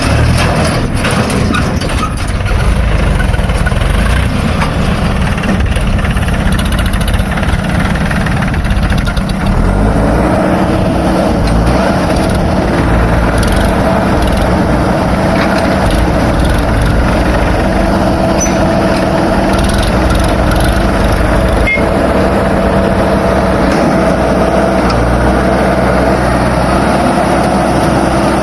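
Heavy diesel engine running loudly and steadily, with a steady higher-pitched note joining about ten seconds in and holding.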